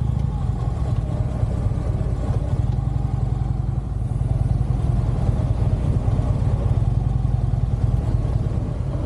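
Harley-Davidson V-twin motorcycle engine running steadily at low revs.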